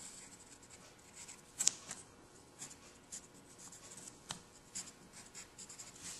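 Pencil scratching quietly across graph paper as lines are drawn, in a series of short strokes with a couple of sharp taps of the lead on the paper.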